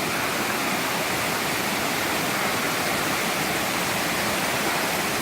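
A waterfall rushing in a steady, even wash of falling water.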